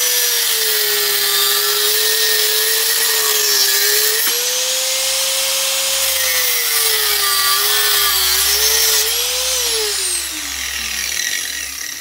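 Small handheld rotary tool with a cut-off disc grinding into a steel bicycle rear dropout, cutting back the end of the slot. Its steady high whine sags in pitch as the disc bites and recovers as it eases off. Near the end it is switched off and the whine glides down as the motor spins down.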